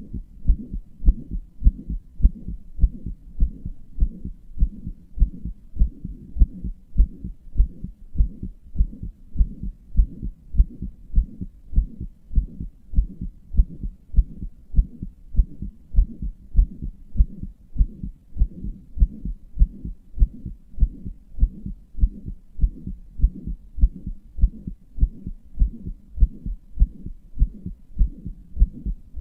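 Close-miked human heartbeat: a steady, regular rhythm of low thumps with a softer continuous sound between the beats. It is the uploader's own heart, which they say has a murmur.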